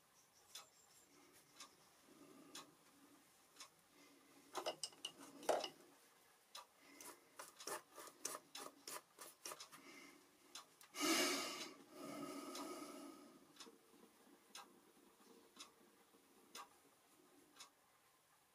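A watercolour brush dabbing and stroking on paper and palette: bursts of quick light taps, then a louder rubbing scrub about eleven seconds in. A clock ticks faintly about once a second throughout.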